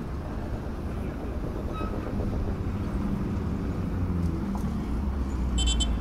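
Motor traffic rumbling along an unpaved road, the engine sound growing louder from about two seconds in as vehicles approach. A short, high beep sounds near the end.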